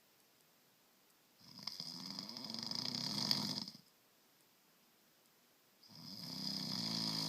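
A man snoring in his sleep: a long snore of over two seconds, growing louder, begins about a second and a half in. After a quiet pause, another snore starts near the end.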